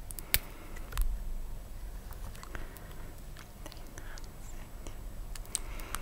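Long acrylic fingernails clicking and tapping against a soft pimple-popping pad while squeezing paste out of its holes. There are a few sharp clicks, the loudest about a third of a second in and another about a second in, with more near the end.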